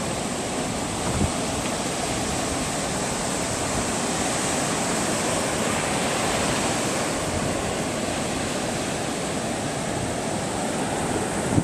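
Ocean surf breaking and washing up a sandy beach: a steady, even rush of wave noise.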